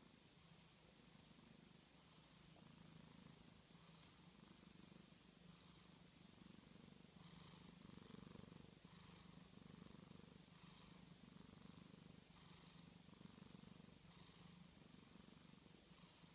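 An orange tabby cat purring faintly while it sleeps, a low steady purr that swells and eases about once a second with its breathing.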